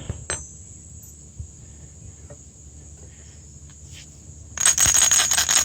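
Metal parts of a steam trap being handled, with a single click just after the start and then a dense clinking rattle for about a second near the end, over a steady high whine.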